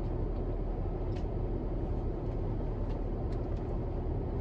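Steady low rumble and hum inside a car cabin, with a few faint clicks of chewing.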